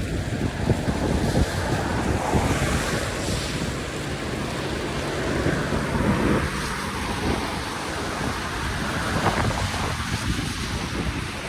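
Floodwater rushing and swirling down a cleared storm drain, with wind buffeting the microphone.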